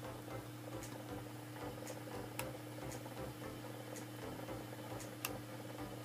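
Light, sharp clicks at uneven intervals, from a glass measuring cup and aluminium flan moulds being handled. Under them runs a steady low hum.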